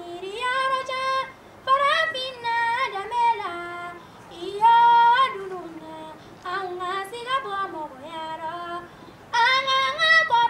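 A young woman singing solo, one voice with no instruments heard, in phrases that rise and fall with pauses between them.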